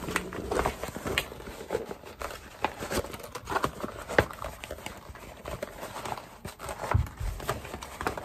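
A Louis Vuitton Speedy bag of coated canvas and leather being turned inside out by hand. The material rustles, creases and scrapes as it is folded and pushed through, with irregular clicks and soft knocks; the sharpest knock comes about four seconds in.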